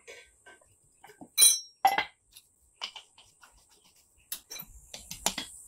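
Spanner clinking against a stainless-steel downpipe and its O2 sensors as the sensors are nipped tight: scattered metallic clinks, the loudest one, about a second and a half in, briefly ringing.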